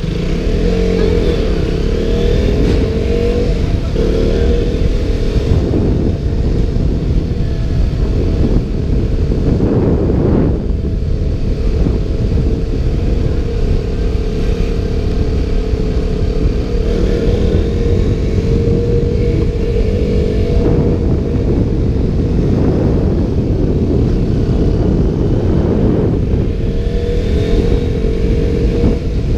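KTM Duke motorcycle engine running under way, its pitch rising and falling again and again as the rider accelerates, slows and shifts gears. It is heard through a GoPro waterproof case under a loud, steady wind rumble on the microphone.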